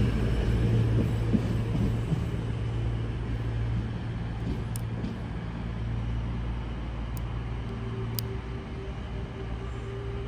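Class 220 Voyager diesel multiple unit's underfloor diesel engines running with a steady low drone that slowly fades. A few faint short clicks come in the second half.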